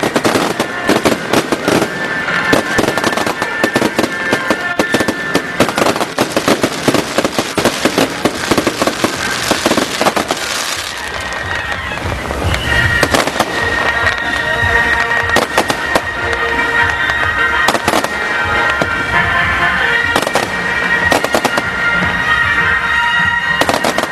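Dense, rapid crackling and bangs of fireworks and firecrackers going off, thinning out about halfway through to scattered bangs, with music playing under it that comes to the fore in the second half.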